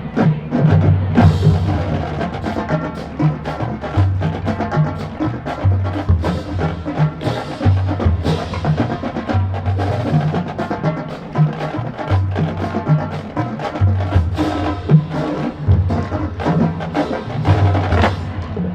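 Marching band music driven by its drumline: many sharp, clicking drum and rim strokes over low sustained notes that change every second or so.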